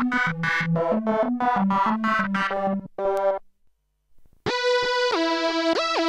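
Arturia MatrixBrute analog synthesizer playing a quick run of short, plucked-sounding notes over a bouncing low line. The run stops after about three and a half seconds, and after a second of near silence a held, buzzy tone starts that steps up and down in pitch.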